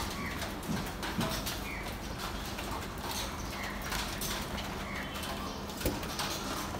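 Street-stall ambience: a few sharp knocks and slaps as roti dough is worked on a steel counter, short bird chirps here and there, and a steady low hum under it all.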